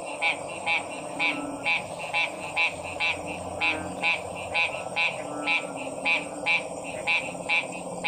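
Frogs calling: short, sharp calls repeated about twice a second over a steady background chorus, with deeper croaks now and then.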